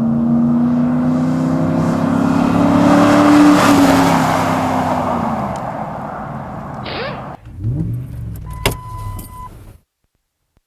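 Ford F-150 pickup engine through a freshly installed Magnaflow 3-inch cat-back exhaust, accelerating: the exhaust note rises in pitch for a few seconds, peaks, then eases off and fades. Near the end come a couple of sharp knocks and a short beep-like tone.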